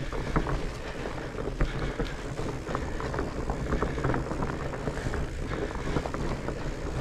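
Mountain bike ridden over muddy, rooty singletrack: a steady rumble of tyres on dirt, with frequent small rattles and knocks from the bike as it goes over bumps.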